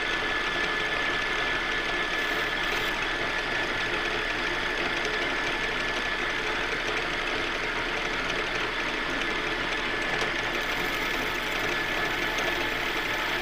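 Metal lathe running steadily while it takes a facing cut across the face of a part with a carbide insert tool. A thin, steady high whine sits over the machine noise.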